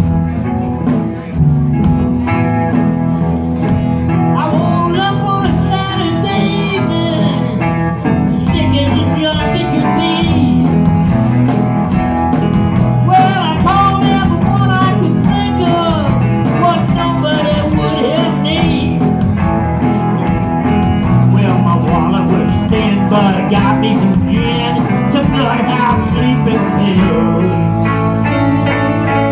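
Live band playing a song on electric guitars over a drum kit with a steady beat.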